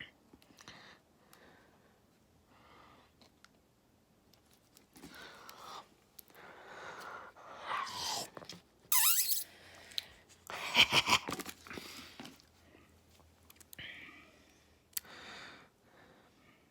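A person eating spoonfuls of yogurt with mouth and chewing sounds, then a few loud, breathy wheezing bouts in the middle, a reaction to a dairy allergy.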